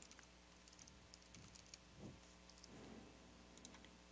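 Faint computer keyboard typing: quick, scattered key clicks as a name is typed, over a low steady electrical hum.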